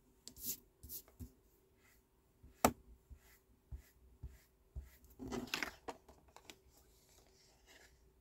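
Ink pad handled and brushed across cardstock: scattered soft taps and knocks of its plastic case on the table and paper, with a short scuffing rub of pad on card about five seconds in.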